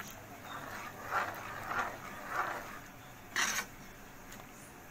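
Metal spoon scraping and stirring a thick, granular milk-and-mango mixture in a pan: a run of short scrapes about half a second apart, with one louder, sharper scrape about three and a half seconds in.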